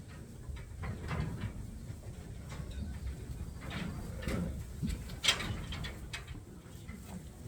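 Sheep moving through a metal handling chute: scattered knocks and rattles of gates and hooves, with one sharp knock about five seconds in.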